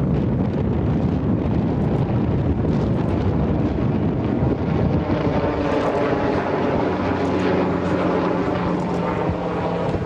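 Wind buffeting the microphone over a low rumble. About halfway through, a steady drone of several pitches comes in from an engine.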